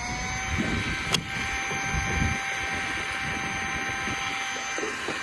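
Electric fishing reel (Shimano ForceMaster 3000) winding in line: its motor whine climbs in pitch as it spins up, runs at a steady pitch, and stops near the end, with a single click about a second in.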